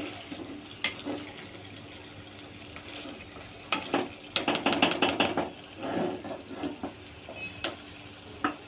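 Spatula stirring spiced potato slices in a cooking pot, scraping and knocking against the pot, mostly in a busy stretch from about four to six and a half seconds in, with a few single knocks around it.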